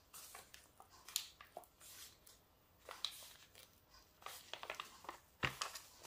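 Protective paper sheet being peeled back off a diamond painting canvas's glue layer: scattered soft crackles and rustles, with a sharper crackle about five and a half seconds in.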